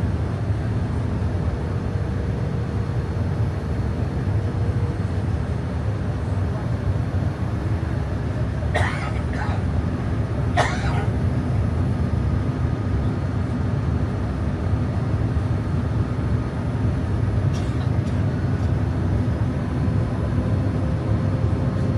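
Steady low rumble of a Boeing 787-9 airliner cabin with faint engine tones running through it. Brief sharp sounds break in about nine, eleven and seventeen seconds in.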